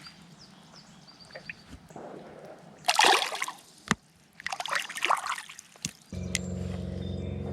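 Creek water splashing in two short bursts, about three seconds in and again near five seconds, over a faint trickle. A steady low hum starts abruptly about six seconds in.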